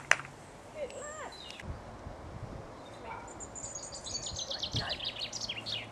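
Small birds chirping, with a fast trill of short notes falling in pitch through the second half. Right at the start there is a sharp double click.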